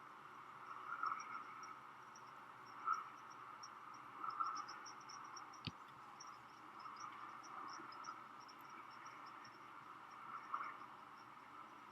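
Faint night-time outdoor ambience: crickets chirping in quick high pulses, with a lower call repeating every second or two, and one sharp click about halfway through.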